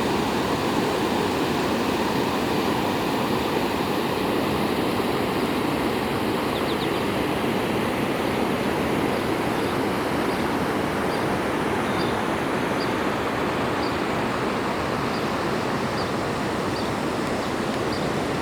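Floodwater rushing steadily in a loud, even roar of moving water. In the second half, faint short high chirps repeat about once a second.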